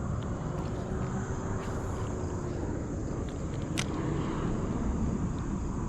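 Steady rush of flowing creek water around a wading angler, with one sharp click about four seconds in.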